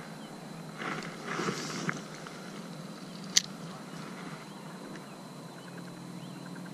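Spinning rod and reel in use on a cast: about a second of rushing, rustling noise, then a single sharp click about halfway through, like the reel's bail snapping shut.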